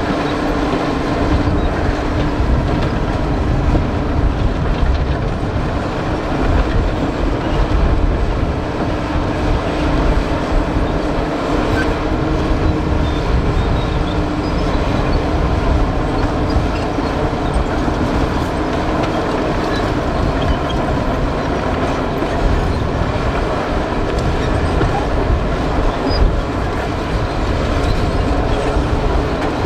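Komatsu D65EX crawler bulldozer's diesel engine running steadily under load, with the clatter of its steel tracks as it pushes earth.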